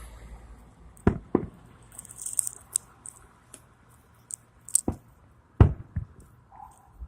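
Fireworks going off: sharp bangs, a pair about a second in and several more near the end, with lighter crackles and pops between them.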